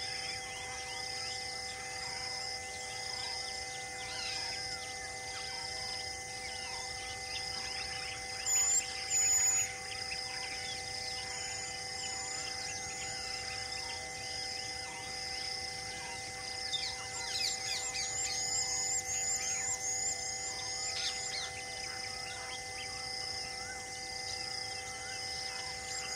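Bush ambience of birds calling: a high chirp repeats evenly a little more than once a second, two short, louder high calls come about nine seconds in, and a flurry of quick falling-pitch calls comes about two-thirds of the way through. Beneath it all runs a steady hum of held tones.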